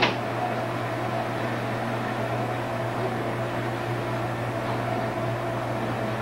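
A steady low hum with hiss, with a sharp click at the very start.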